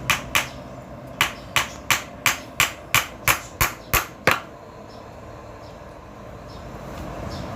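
Hammer driving nails into wood: a run of about a dozen sharp strikes, roughly three a second, the last one the loudest, stopping a little past four seconds in.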